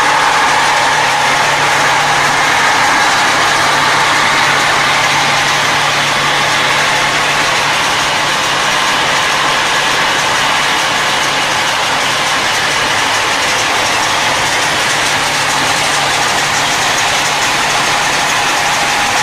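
Inclined enclosed chain conveyor and plant machinery running steadily: an even, loud mechanical noise with a constant hum underneath.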